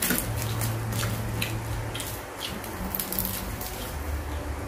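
Crisp fried fish being torn apart by hand, its crust and bones crackling and snapping in a quick run of small clicks over a low hum.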